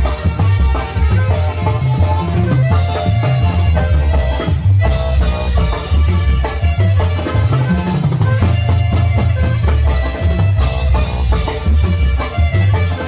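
Live tamborazo band playing: a saxophone carries the melody over a steady beat of bass drum, drums and cymbals.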